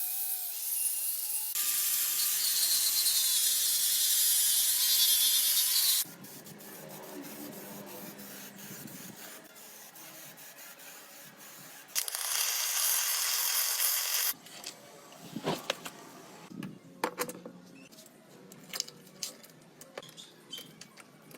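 Workshop tool sounds with abrupt cuts between them. A power tool runs for about four seconds, then comes quieter rubbing and scraping, then another brief power-tool burst. Near the end there are scattered sharp taps and clicks of hand work.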